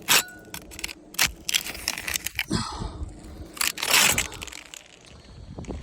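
Brittle architectural asphalt roof shingles crackling and crunching as they are pried at and handled, a string of sharp cracks and scrapes, loudest just after the start and about four seconds in. The shingles are so brittle that they break rather than separate.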